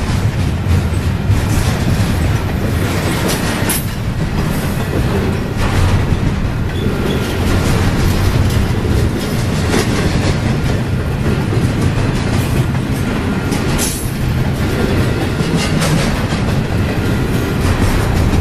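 Double-stack intermodal freight train's well cars rolling steadily past, their wheels clicking over the rails, with a sharp clack every few seconds.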